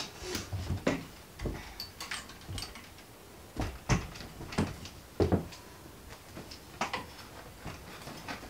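Irregular clicks, knocks and low thuds, about eight in all, from handling a camera tripod and a large heart-shaped prop.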